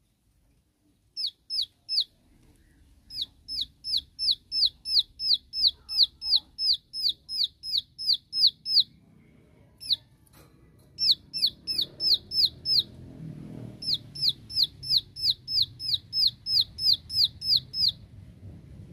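Plain prinia giving its rapid 'tembakan' (shooting) call, a challenge to rival birds: a long string of sharp, high, down-slurred notes about three a second, in runs of several seconds with short breaks.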